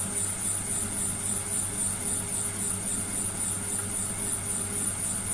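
Lathe running steadily: an even motor hum with a thin, high whine over it.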